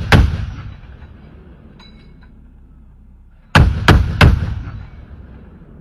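LAV 6.0's 25mm Bushmaster chain gun firing in short bursts: the last round of a burst right at the start, then a three-round burst about three and a half seconds in, shots about a third of a second apart. Each shot is followed by a rolling echo that dies away over about a second.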